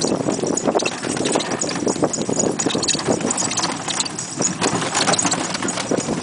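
A pony pulling a cidomo horse cart along a dirt road: hooves clip-clopping under the cart's steady rattle, with light jingling from the harness.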